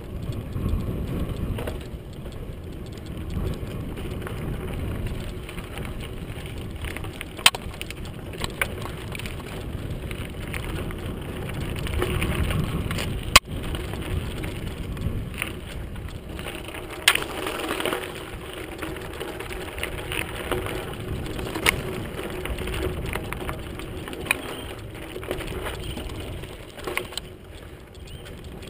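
Mountain bike rolling along a dirt singletrack: a continuous low rumble and crunch of tyres on dirt and gravel, with sharp clacks and rattles as the bike jolts over bumps and rocks, the loudest about 13 seconds in.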